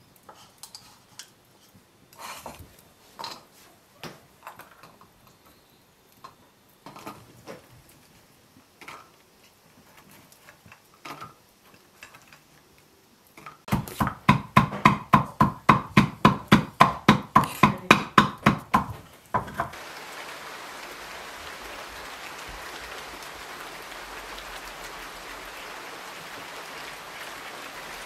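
Wooden pestle knocking in a wooden mortar while walnut kernels are crushed: scattered knocks at first, then about halfway through some six seconds of fast, steady pounding at three or four strokes a second. It then gives way to the steady hiss of rain.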